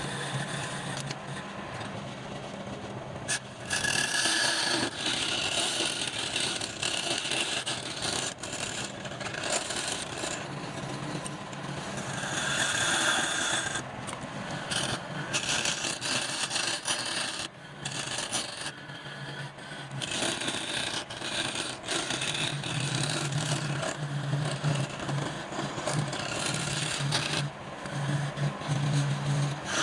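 Wood lathe turning while a hand-held turning tool scrapes and cuts the spinning wood, in uneven stretches of rasping noise over a low motor hum that grows stronger near the end.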